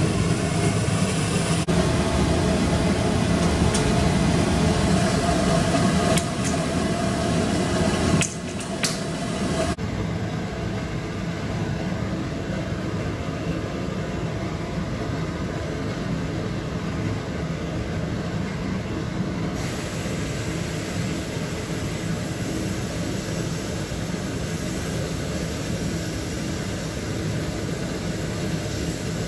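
Dry abrasive blast cabinet running: a steady rush and hiss of compressed air and blast media being sprayed at taped-up steel brake pipes and rubber hoses to strip paint and rust. The sound is loudest for the first eight seconds or so, then drops a little and changes tone.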